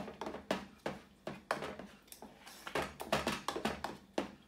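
A spoon stirring thick oatmeal in a stainless steel saucepan, scraping and knocking against the pan about two or three times a second in an uneven rhythm.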